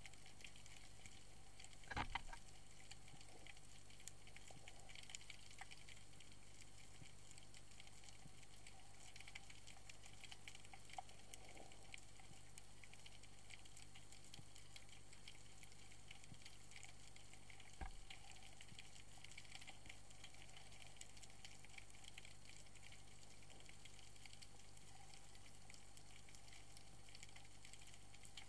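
Faint underwater ambience through a diving camera's housing: a steady, fine crackle, with two louder short knocks, one about two seconds in and one about eighteen seconds in.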